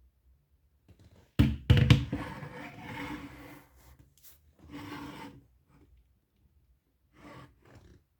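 Handling noise: a few sharp knocks about a second and a half in, then rubbing and scraping that fades, with shorter bursts of rubbing later on.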